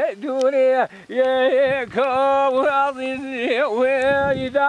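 A man singing siachamane, the Hawrami Kurdish vocal style, unaccompanied: long held notes that break into quick wavering ornaments, with a short pause for breath about a second in.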